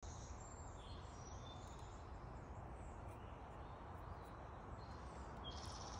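Faint woodland ambience: a steady low rumble with scattered faint, high bird chirps, and a short high trill about five and a half seconds in.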